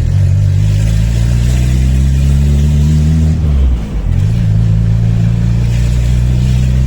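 Turbocharged Volkswagen AP 1.9 engine with a Holset HX40 turbo and 350T cam pulling under acceleration, its pitch climbing for about three seconds, then falling sharply as the throttle is lifted, then running steadily at lower revs.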